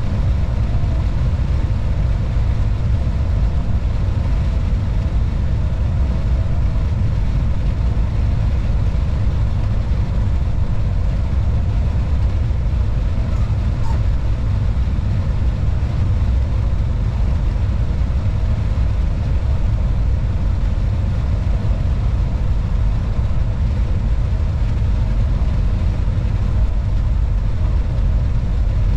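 Steady low rumble inside the driver's cab of a class 187 electric locomotive running along the line: wheels on the rails and the locomotive's running noise, with no change in speed.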